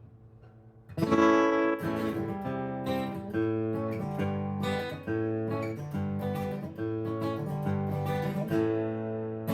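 Acoustic guitar starting about a second in, chords strummed and picked with frequent changes, recorded through a Google Pixel 7 phone's microphone.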